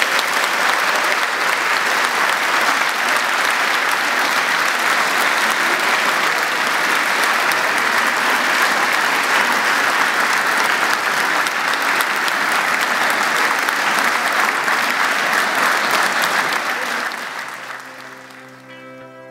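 Audience applauding steadily after a speech, dying away about seventeen seconds in as music fades in near the end.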